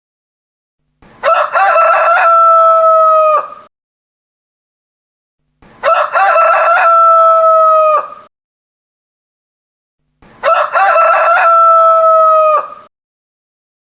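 Rooster crowing three times, a few seconds apart. Each crow is a loud, drawn-out call of about two and a half seconds that drops in pitch at the end.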